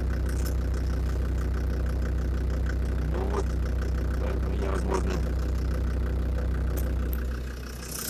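Land Rover Defender Td5's five-cylinder turbodiesel idling steadily, with a light regular knock from around the exhaust manifold, which the owner puts down most likely to faulty hydraulic lifters. The sound drops lower about seven seconds in.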